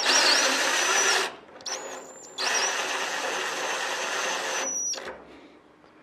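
Power drill driving a 1/4-28 bolt to tighten a bracket, its motor whining steadily in two runs with a brief blip between them. The pitch dips as the bolt takes up, and the drill stops about five seconds in.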